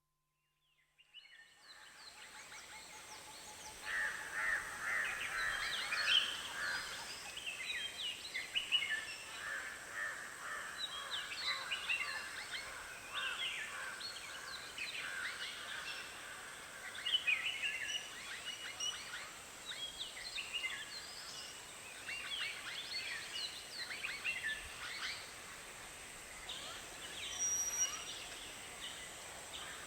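A chorus of many birds calling at a watering hole, dense overlapping chirps and short calls, fading in over the first few seconds, over a faint steady hiss.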